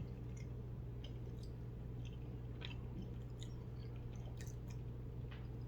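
A person chewing food close to the microphone: scattered small wet clicks and crunches over a steady low hum.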